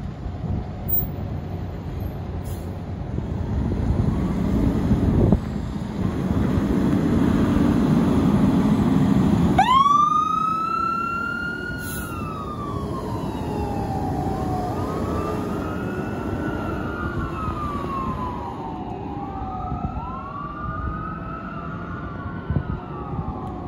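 Fire engine pulling out and passing close, its engine rumbling low, then about ten seconds in its electronic siren starts with a quick rise into a wail that sweeps slowly up and down, about five seconds to each cycle, as the truck drives away.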